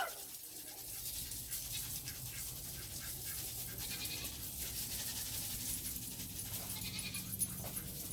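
Coop deodorizer granules being sprinkled onto the coop floor: a faint scattered patter of small ticks and rustling over a low steady hum.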